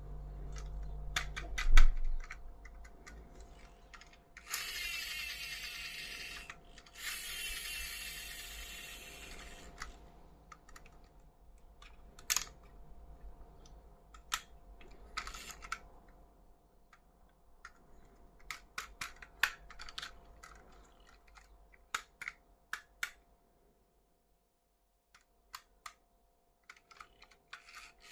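Toys and their plastic packaging handled by hand: a hard thump about two seconds in, two longer rasping noises a few seconds later, then scattered sharp plastic clicks and taps that thin out toward the end.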